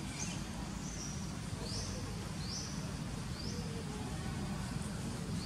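Outdoor ambience of short, high-pitched chirps, each rising quickly and then holding briefly, repeated about once a second over a steady low rumble.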